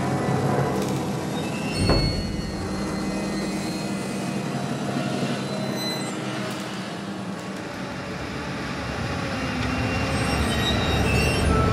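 Old bus driving over a rough gravel road, its engine running with a steady low hum under rattling and clattering noise, and a single knock about two seconds in. Near the end the engine grows louder.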